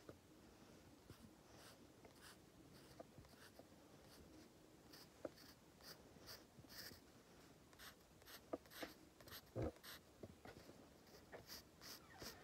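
Pencil scratching on sketchbook paper in short, irregular strokes, faint, as lines are drawn. About ten seconds in comes one louder knock.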